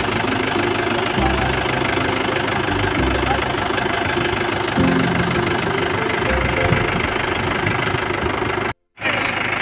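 Motorcycle engine running at low speed, the sound dropping out briefly near the end.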